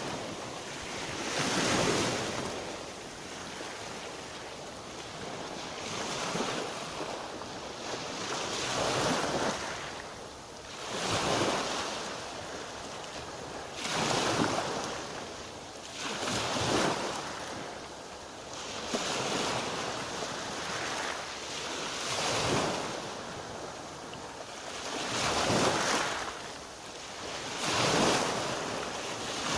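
Black Sea surf: waves breaking and washing up the shore, a steady rush that swells into a loud surge every two to five seconds.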